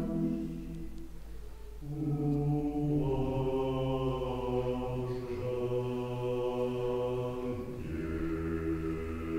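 Mixed-voice a cappella church choir singing slow, held chords of Serbian Orthodox sacred music. The sound thins about a second in, then low basses come in with a new chord, and the harmony moves on to new held chords three more times.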